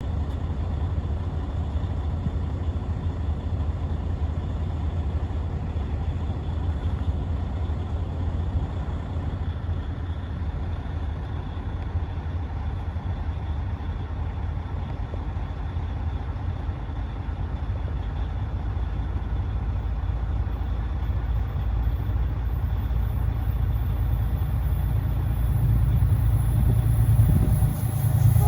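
Steady low vehicle rumble, growing gradually louder over the last several seconds.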